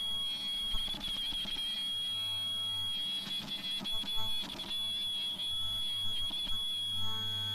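Ultrasonic sewing machine running while non-woven fabric feeds through its rotary wheel: a steady high-pitched whine over a low motor hum, with light ticks and rustles from the fabric and rollers.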